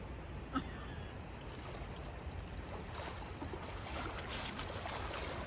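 Steady rushing of moving river water with wind on the microphone, a single sharp click about half a second in, and a hiss that grows with scattered splashy crackles in the second half.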